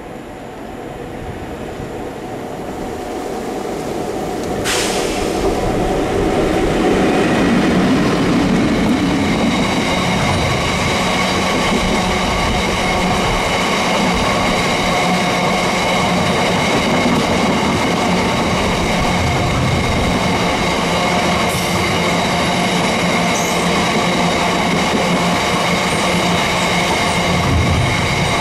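Diesel-hauled freight train approaching, growing louder over the first several seconds and then running steadily past with a continuous rumble of wheels and wagons. A sharp crack comes about five seconds in, and a steady high whine from the wheels carries on after it.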